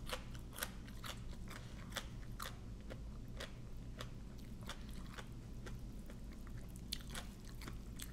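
Close-up chewing of Thai papaya salad with fresh shrimp and raw vegetables: crisp crunches and wet mouth clicks, several a second and irregular.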